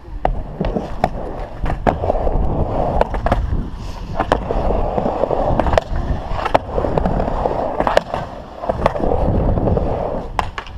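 Skateboard wheels rolling on a mini ramp, a steady rumble that dips briefly a few times, with many sharp clacks from the board and trucks.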